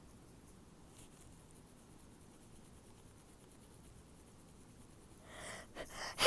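A person's stifled sneeze: after a long quiet stretch, a breathy build-up begins about a second before the end and breaks into one sudden, sharp, held-in sneeze, the loudest sound here.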